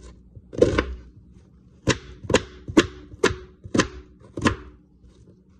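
Kitchen knife chopping an onion on a cutting board: about seven sharp strokes, roughly two a second, that stop shortly before the end.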